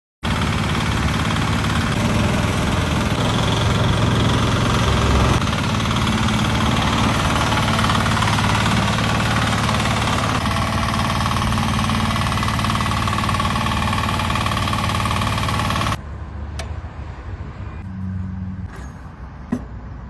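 Small garden tractor's engine running steadily and loudly, dropping suddenly to a much quieter engine sound with a few light clicks about 16 seconds in.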